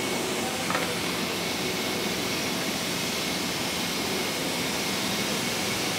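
Elevated subway train running along the track: a steady rushing noise, with one faint click about a second in.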